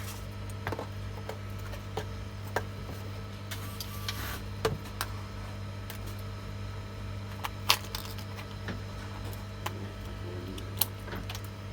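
Steady low electrical hum, with scattered light clicks and taps; one sharper click comes about two thirds of the way through.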